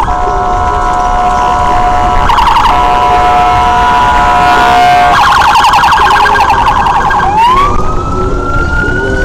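Police car electronic siren sounding loud and close: a steady tone, a short rapid warble about two seconds in, a fast yelp from about five seconds in, then a long rising wail near the end.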